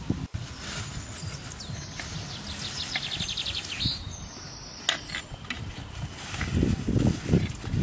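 Birds chirping and trilling over outdoor rural ambience. Later come scattered clicks and low rustling from hands peeling a charred grilled banana over a plastic bag.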